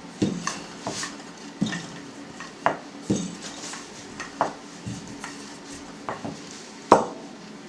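Wooden rolling pin rolling out thin dough on an acrylic board, its wood knocking against the board in about ten irregular clicks, the loudest near the end.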